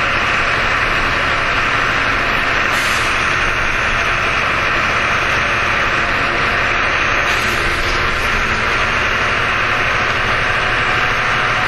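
Jelcz M121M city bus heard from inside while on the move: a steady engine hum under a loud, even hiss of running noise. A short sharper hiss rises out of it about three seconds in and again around the eight-second mark.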